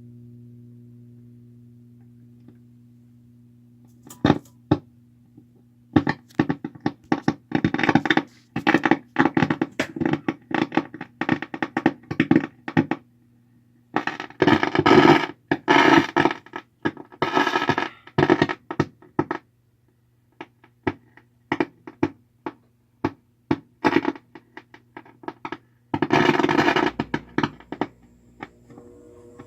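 VOX AC30C2 valve guitar amp crackling very loudly through its speaker: irregular bursts of sharp pops and crackles in dense clusters, over a steady low hum. The owner suspects failing valves, the EL84 power tubes or 12AX7 preamp tubes.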